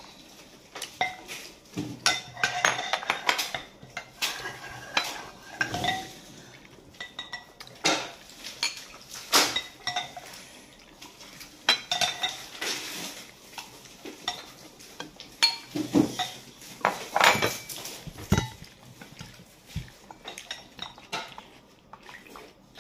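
Eating utensils clinking and scraping against bowls and plates at a meal: irregular light clinks and knocks, a few louder ones about halfway through and in the second half.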